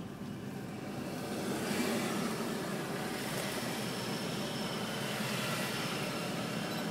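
Heavy trucks going past a moving car, heard from inside the cabin: a steady rush of engine and tyre noise that swells about two seconds in and holds, with a faint high whine in the middle.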